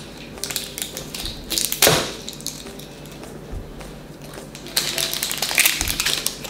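Plastic Shopkins surprise egg being handled and worked open: small plastic clicks and taps, a sharp crack about two seconds in, and a quick run of clicks near the end.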